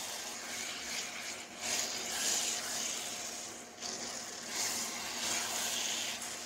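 Ridge gourd sabzi sizzling in a nonstick wok while a spatula stirs it. The hiss swells and eases every second or so as the vegetables are turned.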